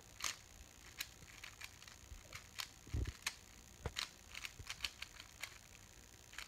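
Rubik's cube being turned quickly by hand: a run of irregular plastic clicks and clacks, with a duller thump about three seconds in.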